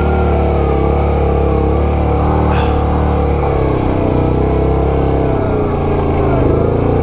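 Yamaha Grizzly 700 ATV's single-cylinder engine labouring up a steep climb in four-wheel drive, low range, carrying two people. Its pitch sags and picks up again twice under the load. There is a brief sharp knock about two and a half seconds in.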